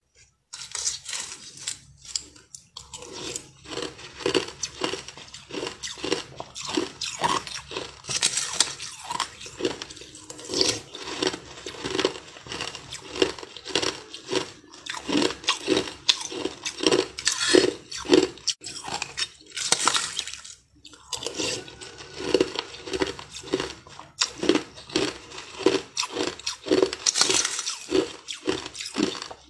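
Crushed ice being chewed: a steady run of crisp crunches, about two a second, as mouthful after mouthful is bitten and ground between the teeth.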